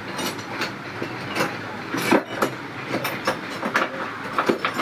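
Irregular clicking and knocking of hard objects, several sharp knocks a second over a steady background hiss, like parts being handled and knocked together.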